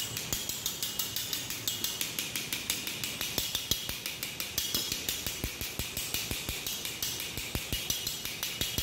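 Hand-held wire-mesh sieve being shaken and tapped over a bowl to sift flour, giving a quick steady run of light metallic ticks, about four or five a second, over a soft hiss.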